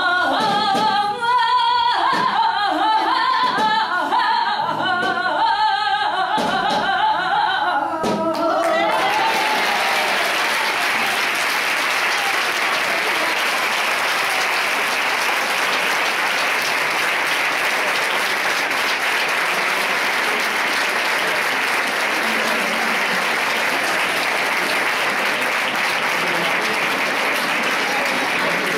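A woman sings the last ornamented phrase of a flamenco saeta, with a few drum strokes, until about nine seconds in. Then an audience breaks into sustained applause that lasts to the end.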